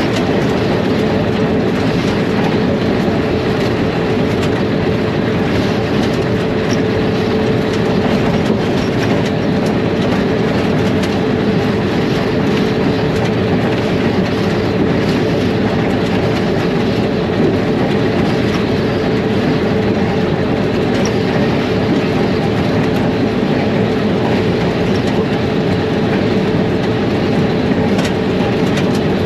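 ALCO diesel-electric locomotive under way, heard from inside its cab: the engine running with a steady hum over the rumble of the wheels on the rails, unchanging throughout.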